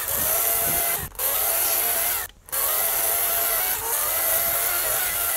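EGO 56-volt 14-inch cordless chainsaw running at full speed, its chain cutting into a log: a steady electric whine with chain noise. It cuts out briefly about a second in and again for a moment a little after two seconds.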